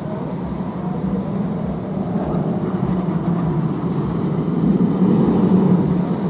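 Steel roller coaster train rumbling along its track on a test run, a steady rumble that grows louder toward the end.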